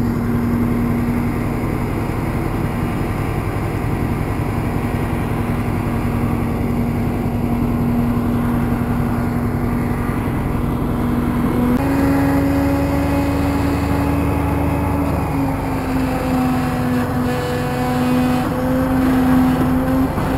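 Heavy truck's diesel engine running steadily, with a constant drone. About twelve seconds in, the engine speeds up and then holds at the higher speed.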